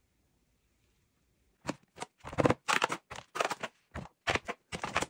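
Hard plastic high-chair trays and divided plates being handled: after a silent start, a quick irregular run of scraping and clattering knocks begins about a second and a half in as the tray is pulled off its base.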